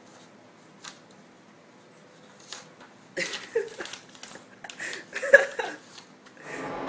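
A sheet of printer paper rustling and crackling in a series of short bursts as a cat paws and pulls it out of an inkjet printer's output tray, one sharp crackle the loudest. Near the end a printer starts running with a steady mechanical sound.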